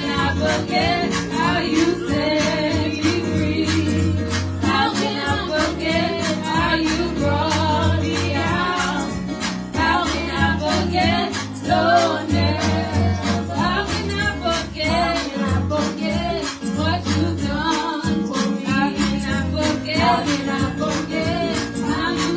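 Two women singing a gospel song through handheld microphones and a PA, over instrumental accompaniment with a steady bass and beat.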